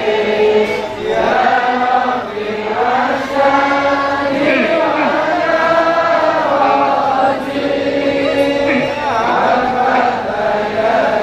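A man's voice chanting a sholawat, an Islamic devotional song praising the Prophet Muhammad, in long held notes that bend up and down, sung into a microphone.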